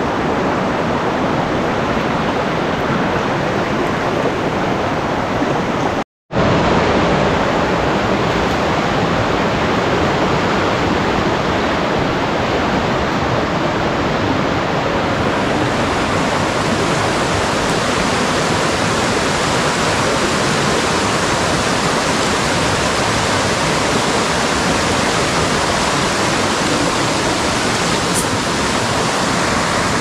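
Waterfall pouring close by: a loud, steady rush of falling water. It cuts out completely for a moment about six seconds in.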